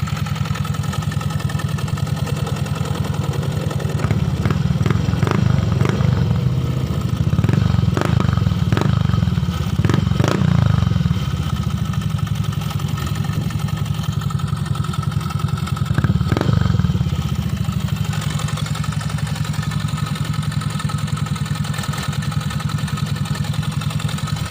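Yamaha Mio i125 scooter's single-cylinder four-stroke engine running through an AI-Tech aftermarket exhaust with the tip fitted. It idles steadily and is revved up several times between about four and eleven seconds in, and once more around sixteen seconds.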